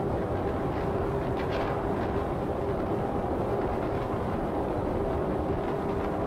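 Steady road noise of a car driving at highway speed: tyre rumble and wind, with a constant low hum.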